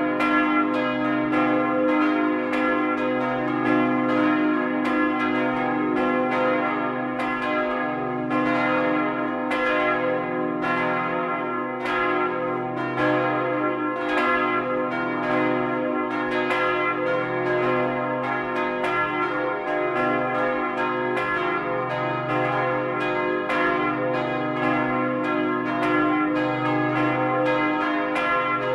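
Full peal of church bells (four bells cast in 1952 by Karl Czudnochowsky) swinging and ringing together, with strikes overlapping several times a second over a steady hum. It is heard close up inside the belfry, right beneath one bell whose clapper strikes its rim.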